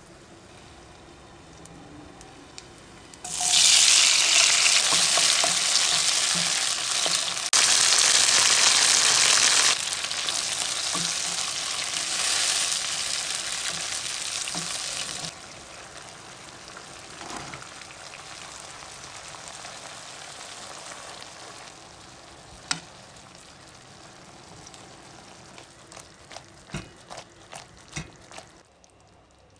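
Cherry tomatoes and garlic frying in olive oil in a non-stick pan: a loud, steady sizzle starts suddenly about three seconds in and drops to a quieter sizzle after about twelve seconds. A few light clicks come near the end.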